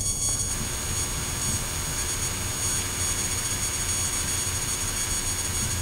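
Light propeller aircraft's piston engine droning steadily at low approach power, heard inside the cabin with airflow noise, on short final for landing. About half a second in, a steady hiss comes up over the drone.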